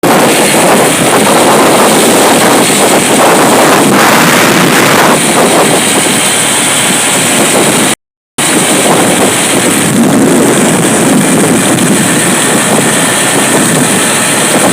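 Wind rushing hard over the microphone of a moving vehicle in the rain, mixed with engine and wet road noise. The sound cuts out completely for a moment about eight seconds in.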